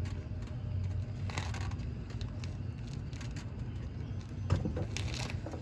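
Faint plastic clicks and scraping as the turn signal bulb socket is twisted to the left and wiggled loose in its housing, with a sharper click about four and a half seconds in, over a steady low hum.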